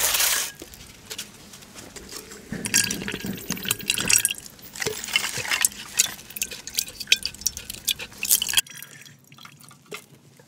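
Liquid splashing and dripping among scattered small clicks and knocks. The sound changes abruptly to a quieter background about eight and a half seconds in.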